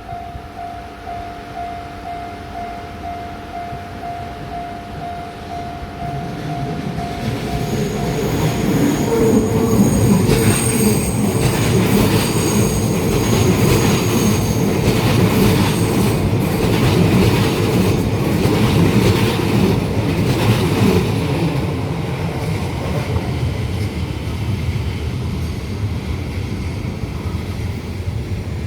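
Shin-Keisei 8800 series electric train passing over a level crossing. The crossing's warning bell rings steadily at first. From about eight seconds in the train runs past, loud for over ten seconds, with high wheel squeal and the repeated clack of wheels over rail joints, then fades.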